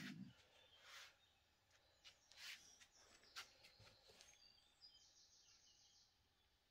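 Near silence, opening with the tail end of a low, pitched grunt-like sound that stops right at the start, then a few faint soft breathy rustles and, in the second half, faint high chirps.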